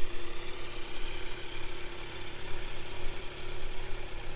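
2019 Kawasaki Z900's 948 cc inline-four engine idling steadily through its stock exhaust.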